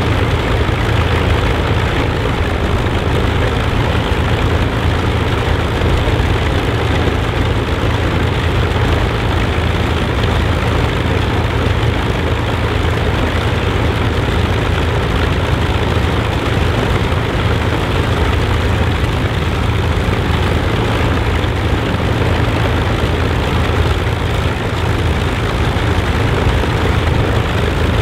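Avro Lancaster bomber's Rolls-Royce Merlin V12 engines running steadily at low power on the ground, a deep even drone with propeller noise.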